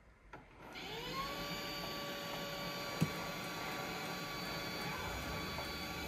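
Samsung Jet Bot AI+ robot vacuum's motor spinning up about a second in with a rising whine, then running at a steady whine. A single sharp click about three seconds in.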